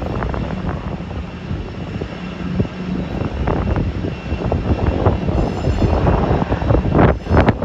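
Airliner engines heard loud at close range, a steady rumbling noise with a crackly texture and two sharp louder spikes near the end.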